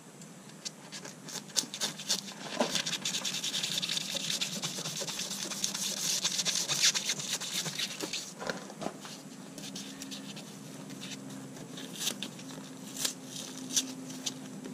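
Knife blade scraping and slicing through partly cured expanding foam filler in a torn vinyl seat: a dense run of scratchy, crackling strokes, heaviest in the first half, thinning to a few sharp clicks near the end.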